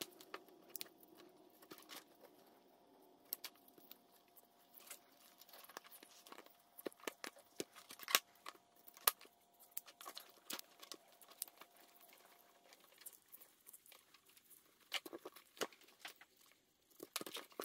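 Small, irregular clicks, ticks and rustles of wires and connectors being handled and worked with a pick on an engine wiring harness. A faint steady whine stops about two-thirds of the way through.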